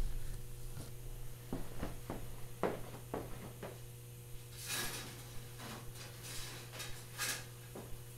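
Hands-on workshop handling noise: a few light knocks and clinks of parts, then several short scraping rustles, over a steady low hum.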